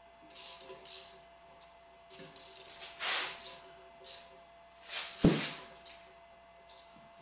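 Hand tools working on a cast-iron arbor press, making short metallic scraping and rubbing noises, then one sharp metal clank a little after five seconds in.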